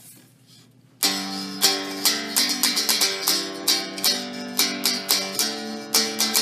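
A Hick Stick, a home-built cigar box guitar, strummed in a steady rhythm starting about a second in, about two strokes a second, with the chord changing every second or so.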